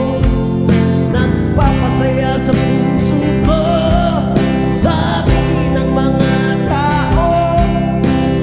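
A song playing: a vocal line with vibrato, sung in Tagalog, over guitar and a steady drum beat.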